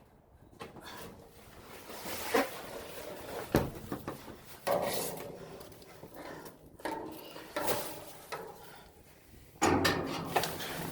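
Objects being handled and rummaged through: scattered knocks, scrapes and rustles, with a louder, busier clatter near the end.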